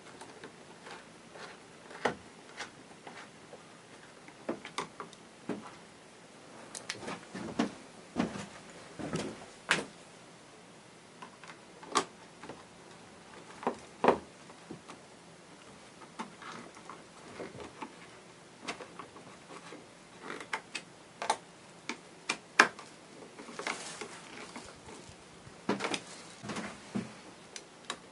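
Scattered, irregular clicks, taps and light knocks of hand-tool work on a generator's plastic airbox: a screwdriver turning nuts onto the studs and the airbox parts being handled and fitted.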